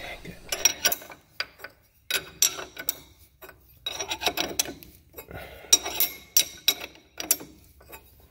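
Steel wrench turning the nut onto the fuel injection pump's drive shaft: bursts of metallic clicking and clinking, a few strokes at a time with short pauses between.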